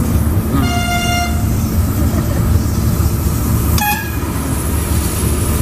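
V60 diesel locomotive's engine running steadily, heard from inside its cab, with a train horn sounding twice: a blast of under a second near the start and a short, slightly higher toot about four seconds in.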